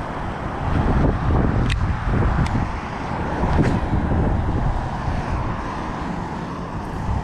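Steady outdoor rumble of wind buffeting the microphone mixed with road-traffic noise, with a few faint clicks.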